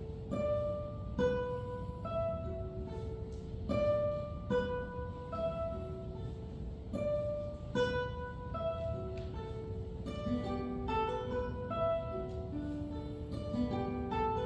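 Classical guitar quartet playing: short plucked notes repeated in overlapping figures passed between the guitars, each note ringing and fading, with lower notes joining in the second half.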